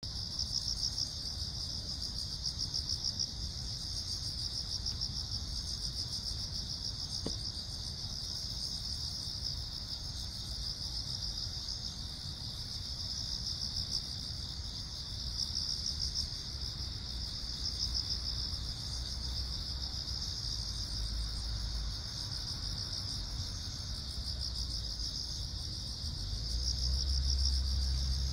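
A continuous chorus of crickets chirping, a dense, fast-pulsing high trill that never lets up. A low rumble underneath grows louder near the end.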